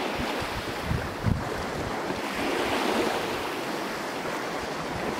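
Sea waves washing and breaking, a noisy wash that swells and fades. Wind buffets the microphone with low thuds about a second in and again near the end.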